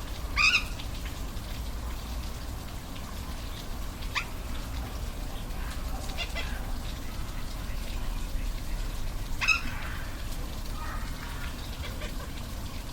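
Steady rush of falling water with brief high animal calls over it, four in all, the loudest about half a second in and near nine and a half seconds in.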